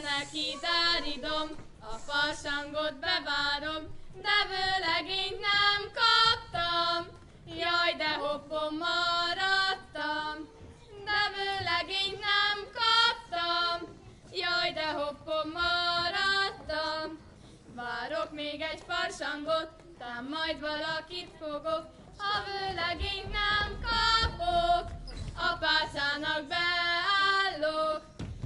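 Two girls' voices, a child and a young woman, singing a song together unaccompanied, phrase after phrase with short pauses for breath.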